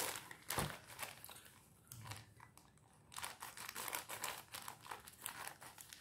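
Plastic poly mailer bag crinkling as it is handled and pulled, in a series of short irregular rustles, loudest at the start and again from about three seconds in.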